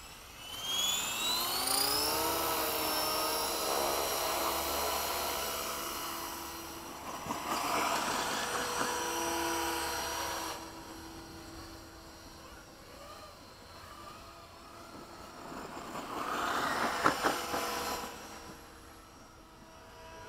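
Align T-Rex 500 electric RC helicopter spooling up with a rising whine over the first two seconds, then flying with a steady motor and rotor whine that grows louder twice, about eight seconds in and again around seventeen seconds in.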